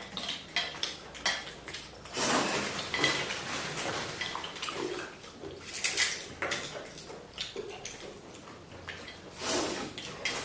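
Close-up eating of chicken thukpa noodle soup: noodles and broth slurped in a few long noisy pulls, about 2, 6 and 9 seconds in, with utensils clicking against the bowl in between.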